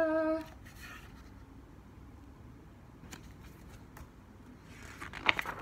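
A woman's sung note trails off in the first half second. Then comes a quiet room, with the pages of a picture book being handled and turned: a few faint paper clicks, and a short run of rustling strokes near the end.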